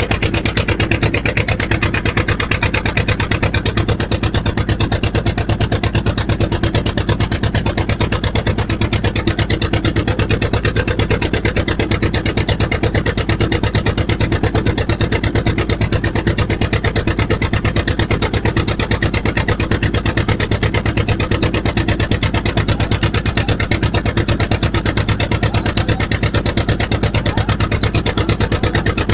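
A boat engine running steadily at a constant speed, with a fast, even chugging pulse.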